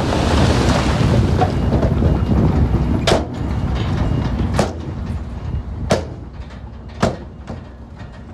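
Earthmoving diesel machinery running while loose stone rushes and slides for about three seconds, then four sharp clanks, a second or so apart, as the rushing dies down.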